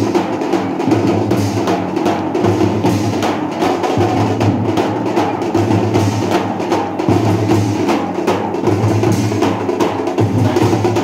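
Teenmaar drum rhythm: fast, steady drumming with sharp, dense strikes over a deep pulsing beat.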